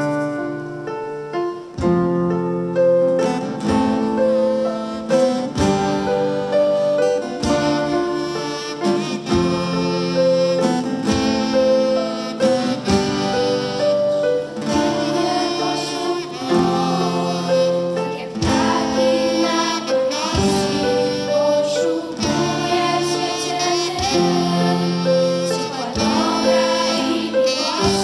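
Girls' group singing a song to acoustic guitar accompaniment, the chords changing about every two seconds.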